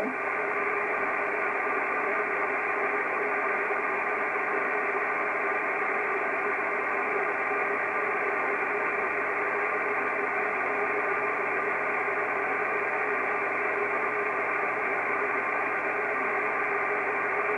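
Kenwood TS-680S transceiver tuned to 50.148 MHz on the 6-metre band, giving a steady hiss of receiver and band noise through its speaker, with no station coming through.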